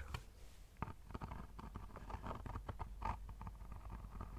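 Soft, quick, irregular clicking and tapping close to the microphone, a rapid patter with no words.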